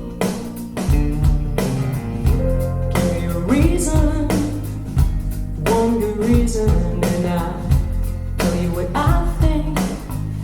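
A song with guitar, bass and drums and a voice singing, played back through Focal Aria 906 bookshelf speakers as a sound demo.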